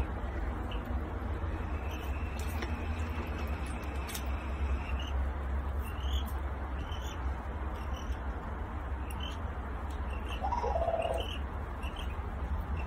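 Sandhill crane colt peeping: short high chirps every second or so, over a steady low hum. A lower, louder call comes about ten seconds in.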